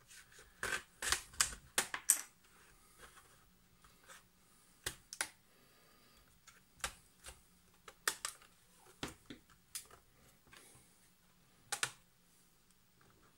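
Plastic snap-fit clips of an Acer Aspire ES1-132 netbook's bottom case clicking loose as the case is pried and pulled off the frame: about a dozen sharp, irregular clicks with pauses between them.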